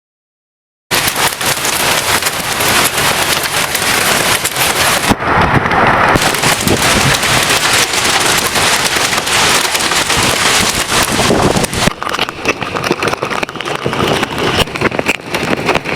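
Heavy storm rain pelting down, a loud dense patter of many hard impacts that starts abruptly about a second in.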